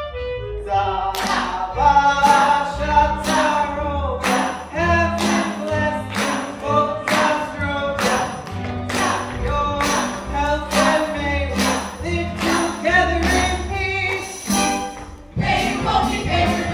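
Lively stage song sung by a cast ensemble with instrumental accompaniment, over a steady beat of sharp strikes about twice a second. Near the end it drops away briefly, then comes back fuller.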